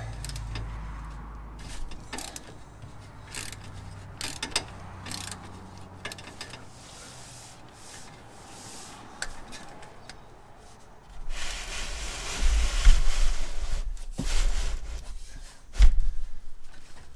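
Hand tools on a car's oil filter housing: a ratchet on stacked extensions and a 74 mm cap-style oil filter wrench clicking and clanking irregularly as they are fitted and worked. About two thirds of the way in comes a few seconds of loud scraping and rubbing with a low rumble, then two sharp knocks.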